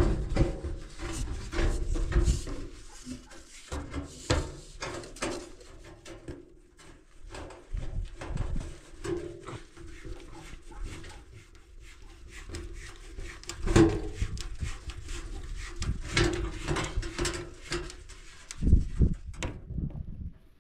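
Plastic drain fittings being worked onto the outlet of a stainless steel sink: repeated small clicks, knocks and rubbing of plastic against metal, with a few louder knocks. A faint low steady tone comes and goes underneath.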